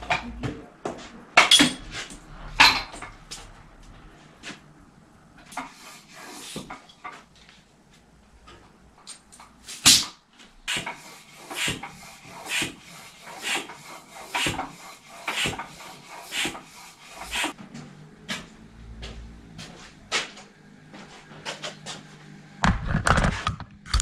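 A string of sharp clicks and knocks from a bicycle being handled in a workshop repair stand, with one louder knock about ten seconds in.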